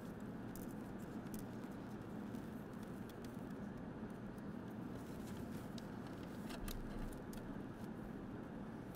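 Faint scattered clicks and rustles of hands handling a wiring harness and a plastic zip tie, over a steady low hum.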